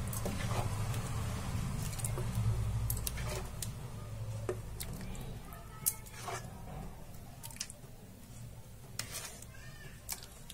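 A ladle scooping thick potato curry gravy out of a kadai, with wet squelching and scattered light taps and scrapes of the ladle against the pan. A low hum fades away over the first half.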